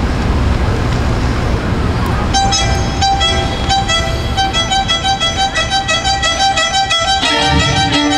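Low rumbling background noise for about the first two seconds, then a string quartet starts: a violin playing quick repeated short notes, joined near the end by a lower string holding a steady note.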